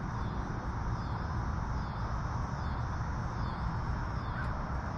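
Outdoor ambience: a steady low rumble, with a faint high-pitched call repeating about once a second.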